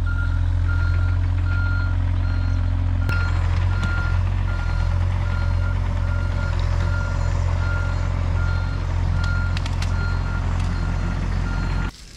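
A reversing alarm beeping steadily over a diesel engine running, as a machine backs up. Both cut off suddenly near the end.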